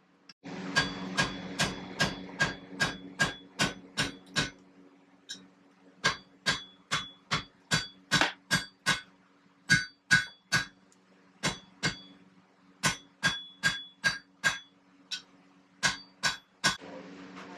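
Blacksmith's hammer striking iron on an anvil, a steady rhythm of about two to three ringing blows a second, in several runs with short pauses between them. A steady low hum sounds under the first few seconds and comes back near the end.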